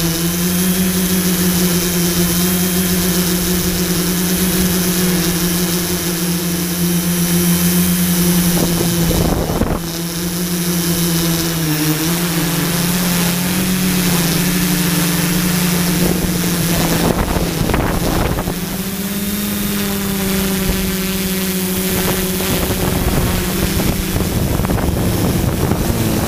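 Quadcopter drone's propellers and motors whining steadily, the pitch dipping and rising a little as it manoeuvres. Two brief gusts of wind noise hit the microphone, about a third of the way in and again about two-thirds in.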